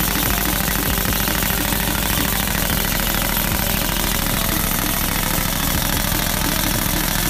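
Rockdril ECODRIL 432 pneumatic drill rig drilling rock with a down-the-hole hammer: a steady, rapid hammering mixed with loud hissing air, the exhaust air blowing rock dust out of the hole.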